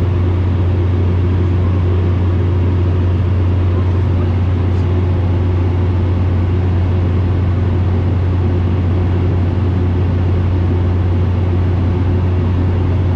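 Steady cabin drone of a Bombardier Dash 8 Q400: a loud, deep, unchanging hum from its Pratt & Whitney PW150A turboprops and six-bladed propellers, with an even rush of noise above it.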